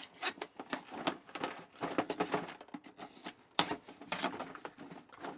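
Clear plastic packaging on a cardboard box crinkling and clicking as it is slit open with a small pointed tool and the box is handled: a run of irregular crackles and taps.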